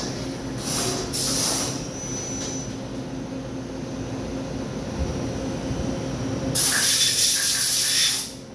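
Daewoo Puma CNC lathe running with a steady hum. Short hissing spray bursts come about a second in, and a louder hiss starts about two-thirds of the way through and cuts off sharply near the end.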